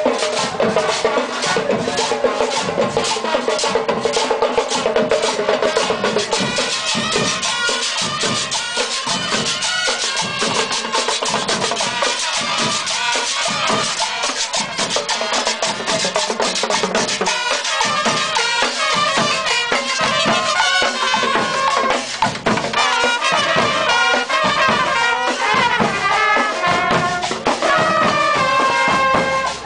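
Marching band playing in the street: snare and bass drums with cymbals keep a fast, steady beat under a melody line.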